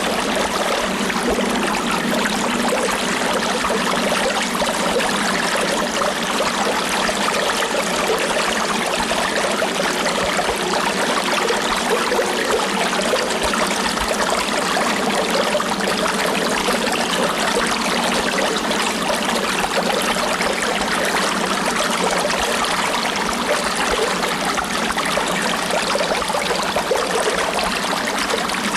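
Flowing stream water, a steady, even rush that does not change.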